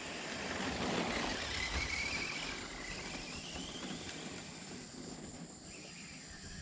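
Arrma Senton 3S RC truck's electric motor whining as it drives, the pitch rising as it speeds up, twice, over a steady hiss.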